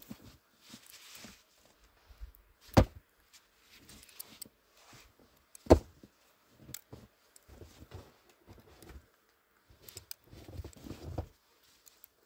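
Hands working in snow and dry twigs at a fire spot: scattered rustling, crunching and small clicks, with two loud sharp impacts about three seconds apart and a low scraping near the end.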